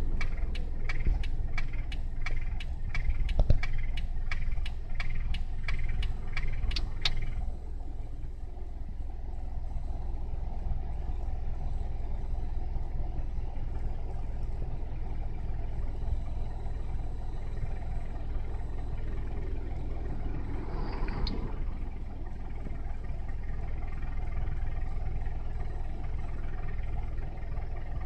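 Toyota Passo's K3-VE four-cylinder engine idling in Drive with an abnormal noise, which the owner puts down to a deteriorated gasket at the joint between the exhaust manifold and the muffler pipe. For about the first seven seconds a sharp regular clicking comes about twice a second over the steady idle. A brief higher sound comes near the end.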